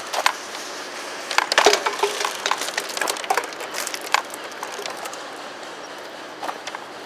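Airsoft guns firing: irregular sharp cracks and snaps, some in quick clusters, thickest in the first half.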